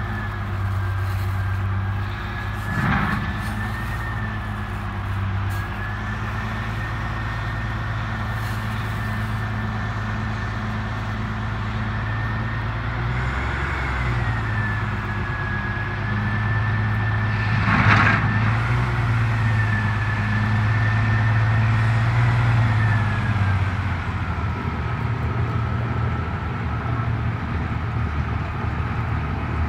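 Diesel locomotive running steadily as it hauls a train, with a high whine that wavers in pitch above the low hum. Two sharp knocks come about 3 seconds and 18 seconds in, the second the loudest.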